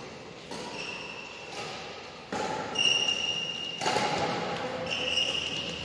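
Badminton play in a sports hall: sharp racket strikes on shuttlecocks and thuds of footwork on the court floor, with several short high squeaks of shoes on the floor. The hits and thuds grow louder a little past two seconds in.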